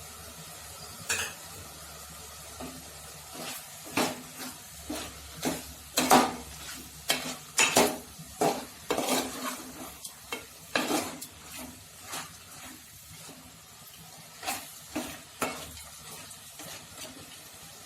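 Chicken, onion and tomato frying in oil in a pan, stirred with a utensil that scrapes the pan in irregular strokes, busiest in the middle, over a steady sizzle.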